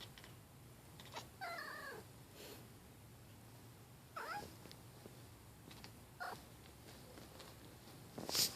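Domestic cat making short, odd, raptor-like calls, three of them spaced a few seconds apart, the first sliding down in pitch. Near the end comes a louder, sharp noisy burst.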